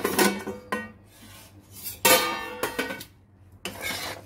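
A stainless-steel plate lid clatters as it is lifted off a kadai, followed by a loud metal clank about two seconds in. Near the end a steel spatula scrapes and stirs sticky, sugar-coated boondi in the pan.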